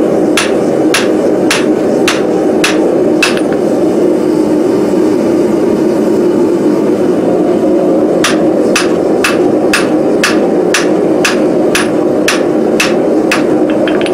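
Hand hammer striking a glowing forge-welded steel bar on the anvil, squaring it toward a rectangle, in blows of about two a second. A run of about six blows comes first, then a pause of some four seconds, then a longer run ending in a few quick light taps. A loud steady rushing noise runs underneath throughout.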